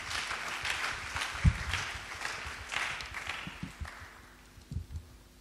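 A congregation applauding, dying away over about four seconds, with a few low thumps from microphones being handled at the pulpit, the sharpest about a second and a half in.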